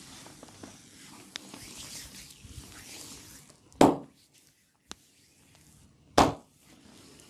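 Soft rubbing and rustling of massage on the body, then two loud, sharp smacks on the body about two and a half seconds apart, with a single faint click between them.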